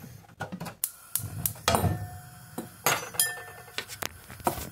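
Metal cutlery and glass dishes clinking as a fork is picked out and handled: a scatter of sharp, irregular clinks, some with a short ring.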